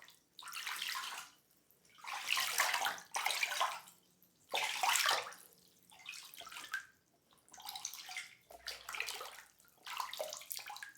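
Water splashing in repeated bursts, each about a second long with short pauses between, like water being scooped and sloshed by hand.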